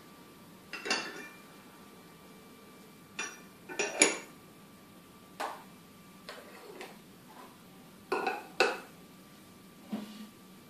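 Porcelain teacups, lids and small lacquered containers clinking and knocking as they are handled and set down on a wooden table: about eight separate clinks, some ringing briefly, the loudest about four seconds in.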